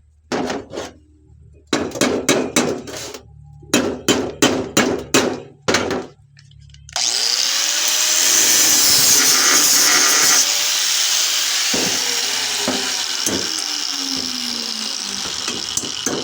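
A run of sharp knocks and taps, then about seven seconds in an angle grinder's cut-off wheel starts cutting into the steel shell of a refrigerator compressor. It makes a loud, steady, hissing grind that slowly eases off toward the end.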